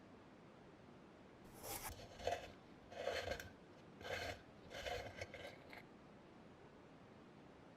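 Five short scraping strokes about a second apart, starting about a second and a half in and stopping near the six-second mark.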